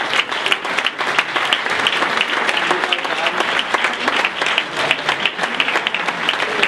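Audience applauding, many people clapping steadily throughout.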